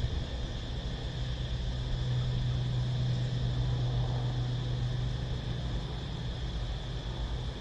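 Cicadas droning steadily in a continuous high buzz, over a low rumble that swells from about two seconds in and eases off after five.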